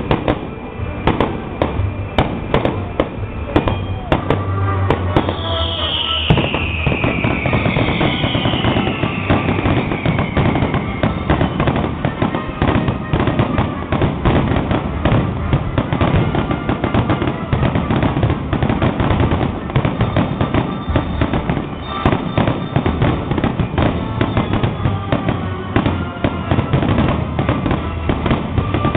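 Fireworks display in a dense barrage: rapid bangs over continuous crackling, with two whistles falling in pitch about five to eleven seconds in.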